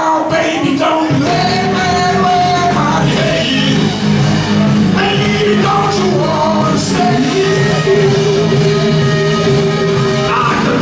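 Live rock band playing: two men singing long held notes together into one microphone over electric guitar, bass guitar and drums.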